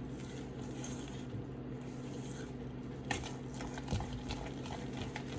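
Spatula stirring thick, sticky almond-flour cookie batter in a bowl: faint squishing and scraping, with a couple of light knocks about three and four seconds in, over a steady low hum.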